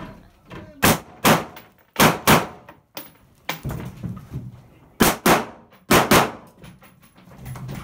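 AR-style rifle firing about eight shots, most of them in quick pairs, each shot with a short echo.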